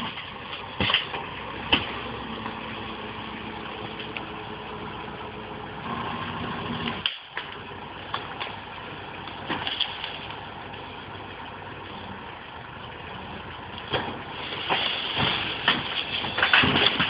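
TDT-55 tracked logging skidder's diesel engine running steadily, with metallic clanks and knocks from the machine as it works. The engine sound cuts out briefly about seven seconds in and grows louder near the end.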